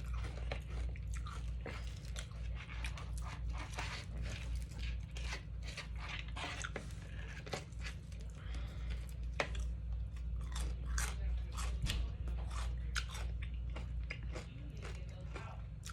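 A person chewing and biting food close to the microphone: irregular wet clicks and crunches, over a steady low background hum.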